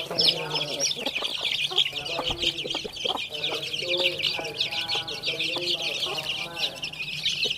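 A flock of young chicks peeping constantly in dense high chirps, with hens clucking in short runs of lower notes over them, as the birds crowd around feed.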